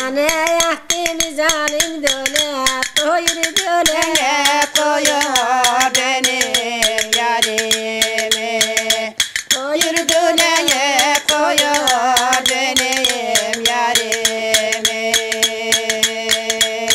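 A woman singing a folk song over a quick clinking beat of tea saucers struck together in the hands as percussion. She holds a long note from a few seconds before the end.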